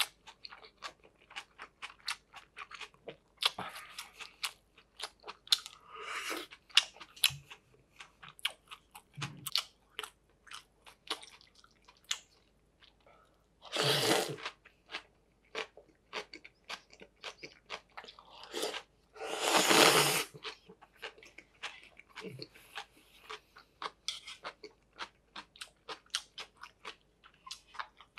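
Close-miked eating: chewing with many short wet mouth clicks, and two long slurps of cold arrowroot noodles, about halfway through and a few seconds later, the second the loudest.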